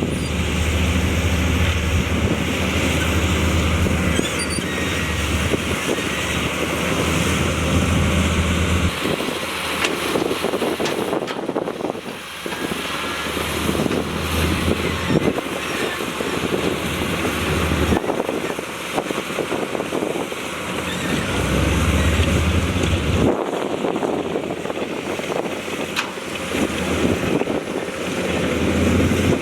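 Diesel engines of heavy earthmoving machinery working, a low drone that swells and eases off several times as the machines take and release load, with scattered metallic clanks.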